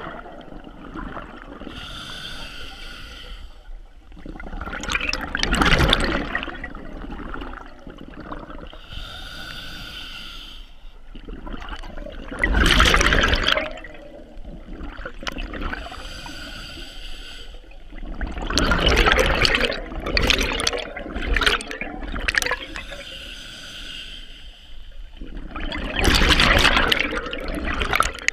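Scuba regulator breathing heard underwater: a hissing inhalation through the demand valve, then a louder rush of exhaled bubbles, repeating steadily about every seven seconds, four breaths in all.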